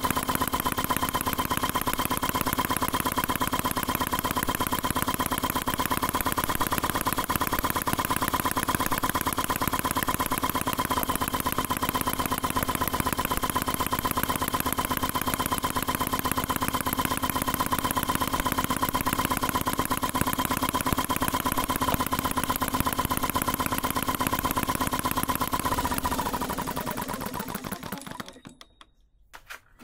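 RETROL HM01 four-stroke model petrol engine running at a fast, even beat. About four seconds before the end it slows with a falling pitch and coasts to a stop.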